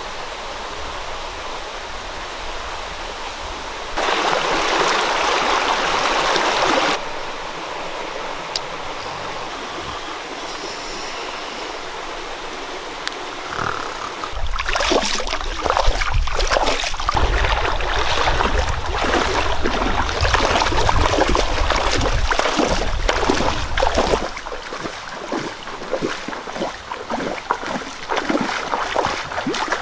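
Running water of a river or stream, a steady rush, louder for a few seconds about four seconds in. From about halfway on it turns uneven and choppier, with splashing strokes and a low rumble.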